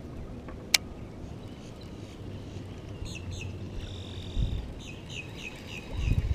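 A bird calling in a series of short, high chirps, about three a second, with one sharp click about a second in and a low rumble underneath.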